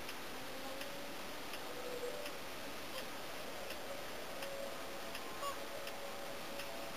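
Regular mechanical ticking from the camera, about three ticks every two seconds, over a steady hiss. Faint, drawn-out whooper swan calls sound in the background, clearer near the end.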